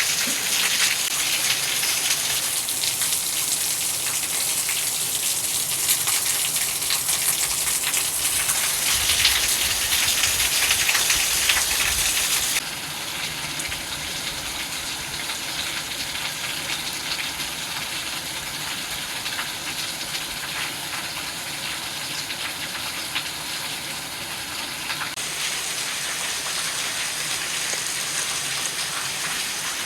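Heavy rain pouring down, with water gushing and splashing. The sound drops abruptly in level about twelve seconds in and brightens again near the end.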